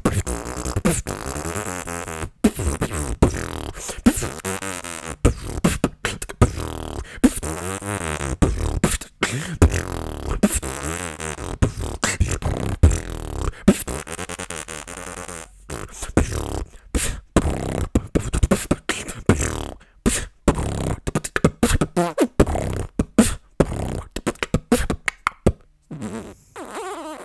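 Freestyle beatboxing into a close microphone: fast rhythmic mouth-percussion clicks and hits, mixed with pitched vocal sounds that sweep up and down between the beats. It gets sparser near the end.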